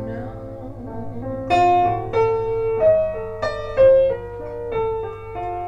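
Piano fill between the sung lines of a slow ballad: held notes, then a slow run of about six single notes. It is played back from a vinyl record by a Shure M3D cartridge fitted with a modified Victor replacement stylus.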